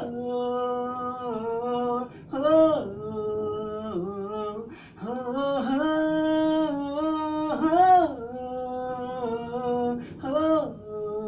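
A man singing unaccompanied, holding long notes joined by quick ornamental turns and pitch bends, with short breaths between phrases.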